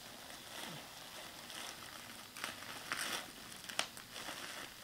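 Plastic bubble wrap crinkling as a baby grabs and crumples it with his hands, in uneven bursts with a sharp click a little before the end.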